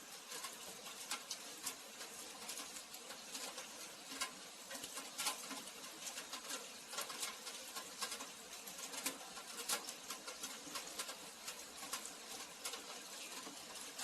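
Rain falling steadily, with a dense haze of noise and many irregular drops ticking sharply on hard surfaces.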